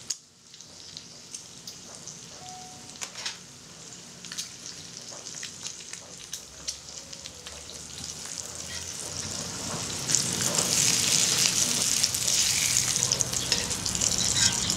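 Bacon sizzling in a cast-iron skillet: a steady hiss scattered with sharp pops and crackles, growing louder about two-thirds of the way through.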